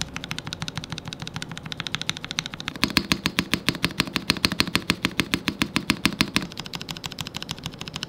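Rapid keystrokes on a D60 Lite polycarbonate 60% keyboard fitted with lubed 8008 Inks linear switches, most of them bare without keycaps: a dense run of clacks, about ten a second, louder for a few seconds in the middle.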